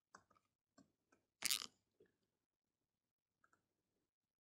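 Faint scattered keyboard taps and mouse clicks from a password being typed and a button being clicked on a computer, with one louder short noisy sound about one and a half seconds in.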